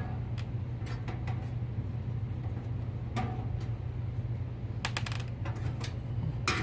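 Screws being taken out of a steel PC case's hard drive cage: scattered light metallic clicks and clinks, with a quick cluster about five seconds in and a louder click near the end, over a steady low hum.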